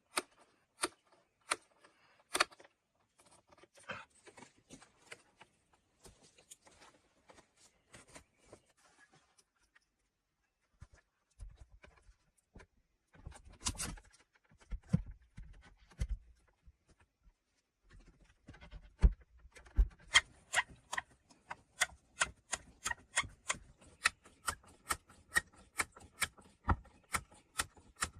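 Hand-tool work on a wooden log door: scattered knocks and a few dull thuds, then from about twenty seconds in a steady run of sharp taps, roughly two to three a second.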